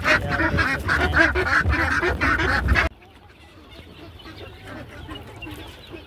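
A flock of penned ducks quacking loudly, many harsh calls overlapping. About three seconds in the sound cuts off suddenly, leaving only faint farmyard background.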